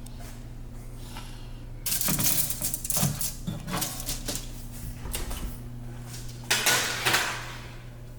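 Kitchen clatter of metal utensils and dishes: a run of clinks and knocks starting about two seconds in, then a louder rush of noise about two-thirds of the way through, over a steady low hum.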